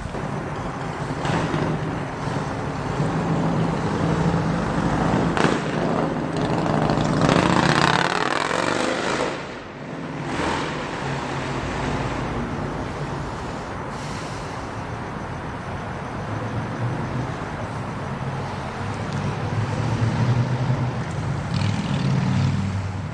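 Amtrak passenger train approaching in reverse: a steady low diesel rumble with rolling noise, loudest around eight seconds in.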